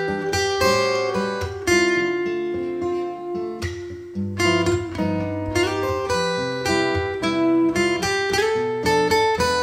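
Two acoustic guitars playing an instrumental arrangement together: a plucked melody over picked chords, the notes ringing on, with a brief lull between phrases about four seconds in.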